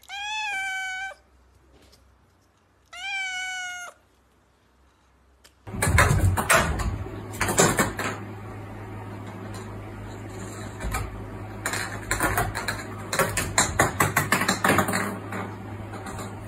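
A kitten meows twice, two high-pitched calls of about a second each that rise, hold and fall. A couple of seconds later comes a long run of repeated knocks and clatters over a steady low hum.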